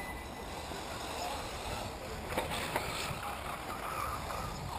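Faint running of 1/8-scale electric off-road RC buggies on a dirt track, heard over steady wind rumble on the microphone, with two light clicks about two and a half seconds in.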